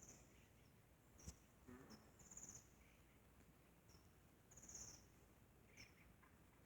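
Faint, high-pitched chirps and short buzzy trills from small birds, several brief calls a second or so apart.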